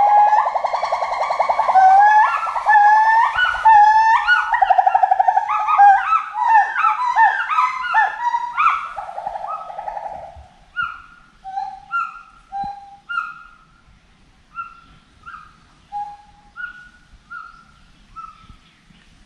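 Gibbon calling: long wavering whoops lead into a run of rising notes that come faster and faster to a peak. After that the call slows into shorter, quieter hoots spaced further apart.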